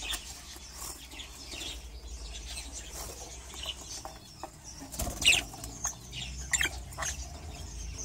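Budgerigars fluttering their wings, with a few short high chirps, mostly in the second half, over a faint low hum.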